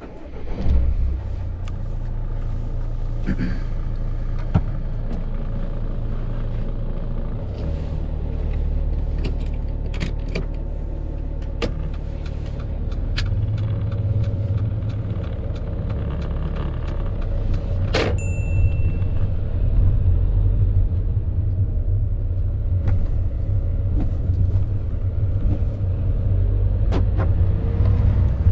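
Car driving away, heard from inside the cabin as a steady low engine and road rumble, with a few scattered clicks and one sharp click with a brief ringing tone about two-thirds of the way through.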